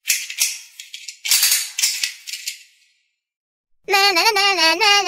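Two bursts of dry, shaker-like rattling, each about a second long, then a pause. Near the end a high, warbling voice-like tone with a quick wobble starts.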